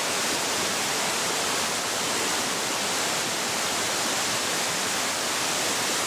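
Small forest waterfall in high flow after heavy rain, water rushing and splashing over rocks in a steady, even rush with no break.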